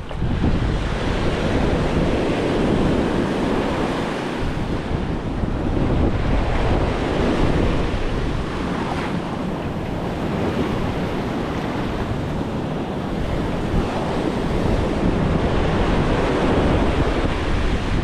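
Atlantic Ocean surf: small waves breaking and foam washing up and back over the sand, a steady rush that swells and eases every few seconds, with wind rumbling on the microphone.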